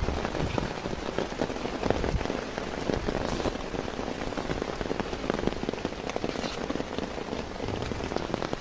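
Steady rain falling on broad taro leaves: a dense, even spread of small drop hits.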